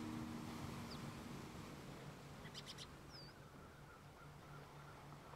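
Faint birds chirping: a quick high trill about two and a half seconds in and a few short whistled notes, over a low hiss. The last chord of the background music dies away in the first second or so.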